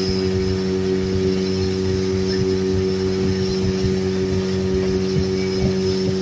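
Motorboat engine running steadily at a constant pitch as the boat cruises.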